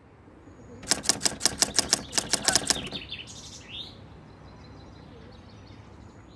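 A quick run of about a dozen sharp typewriter-key clicks over two seconds, then a few short rising bird chirps.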